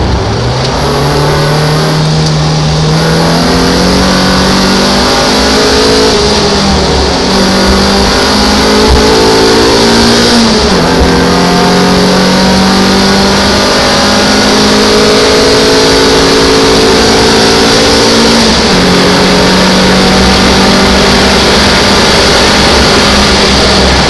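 MGF race car's engine at racing speed, heard from inside the cockpit. Its note climbs steadily and drops back sharply a few times as the driver changes gear or lifts, over a constant rushing of wind and road noise.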